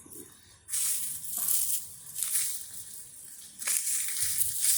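Dry coffee-shell biochar being handled and crumbled by hand: gritty crunching and rustling in three bursts, the last and loudest near the end.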